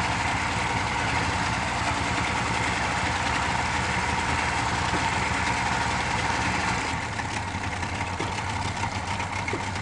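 Yamaha outboard motor idling steadily, then about seven seconds in its low running rumble drops out as the engine stalls at idle.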